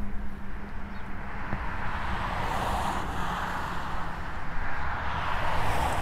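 Cars passing on a road: the rush of tyre noise swells and fades twice, over a low rumble.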